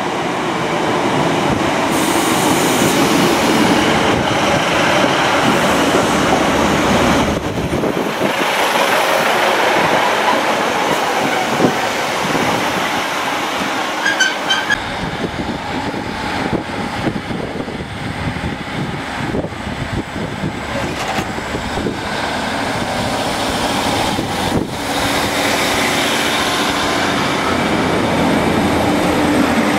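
Northern Rail diesel multiple-unit trains running in and out of stations: engine rumble and wheel noise on the rails, in several clips cut together so the sound changes abruptly three times. A short run of high beeps sounds about halfway through.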